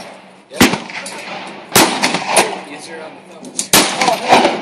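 Handgun shots: three sharp reports spaced one to two seconds apart, each with a short echoing tail. Voices are heard between them.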